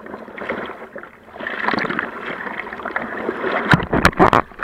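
Seawater sloshing and splashing around a surfboard as the surfer paddles, heard through an action camera's waterproof housing. Several sharp, loud splashes hit about three and a half seconds in.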